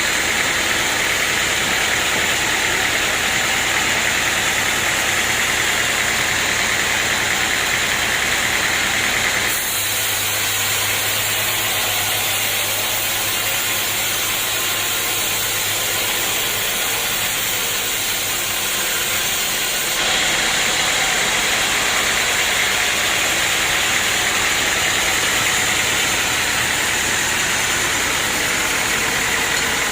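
Portable sawmill running steadily with its engine and saw blade noise. The sound changes abruptly about a third of the way in and switches back about two-thirds of the way through.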